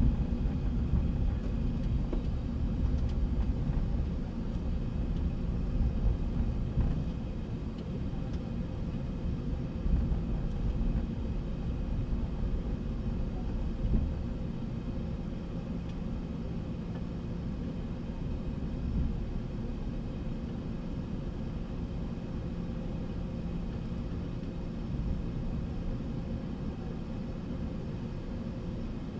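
Steady low rumble and hum in a Boeing 717's cockpit as it taxis slowly into the gate with its engines at idle for the cool-down before shutdown. The low rumble eases about halfway through.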